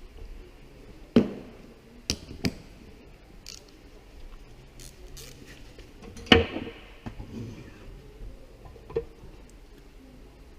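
Hand tools and car parts being handled: a handful of sharp knocks and clicks, the loudest about six seconds in.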